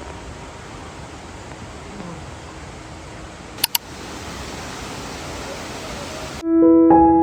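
A steady rushing hiss of outdoor ambience, with two sharp clicks about three and a half seconds in. Piano music comes in near the end.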